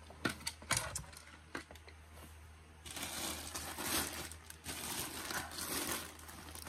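Plastic poly mailer bags rustling and crinkling as they are picked up and handled, after a few knocks and taps in the first couple of seconds.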